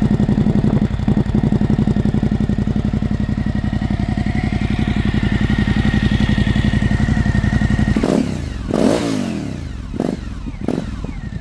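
Suzuki V-Strom 1050DE V-twin running through a Fuel Diablo slip-on exhaust with the baffle removed: a steady, deep, pulsing idle, then the throttle blipped a few times about eight seconds in before it settles back to idle.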